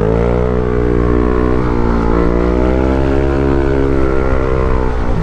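Yamaha NMAX scooter's bored-out 195cc single-cylinder engine running hard under throttle. The revs climb as it begins, hold with a slight rise and fall, and drop just before the end.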